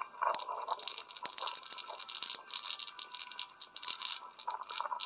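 Irregular crinkling and rustling with scattered sharp clicks and rattles, going on throughout and easing off near the end.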